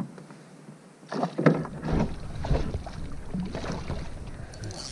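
A run of knocks and handling noises in a canoe, starting about a second in after a quiet moment.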